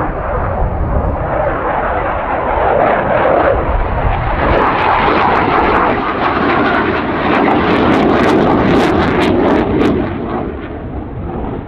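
A MiG-21 LanceR C's single turbojet roars steadily as the fighter flies its display. Sharp crackles run through the middle of the pass, and the sound eases a little near the end.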